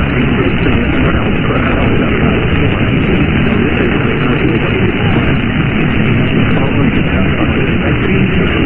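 Loud, steady radio static: an even hiss from a radio receiver, with a muffled, telephone-like quality.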